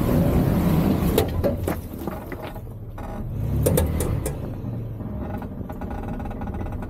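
Toyota 4Runner's engine running under load as the truck crawls up a rocky ledge, with scattered clicks and knocks from the tires on rock. It is loudest about a second in and swells again about four seconds in.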